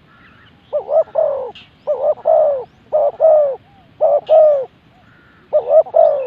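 Spotted dove cooing over and over: five loud phrases of two or three coos each, about one phrase a second. Faint, higher chirps of small birds come between the phrases.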